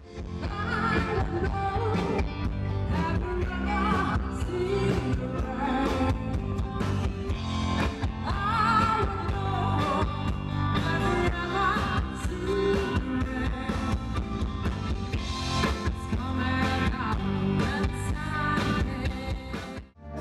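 A song with a singing voice over a steady beat, stopping abruptly near the end.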